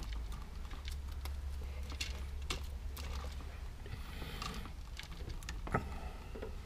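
Scattered light clicks and rattles of a GFCI receptacle and its stiff electrical wires being handled and pulled out of the wall box, with one sharper click near the end.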